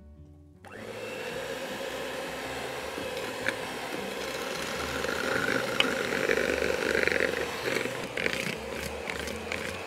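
Electric mixer beating butter, vanilla and icing sugar into frosting: it starts about a second in and runs steadily, a little louder in the middle.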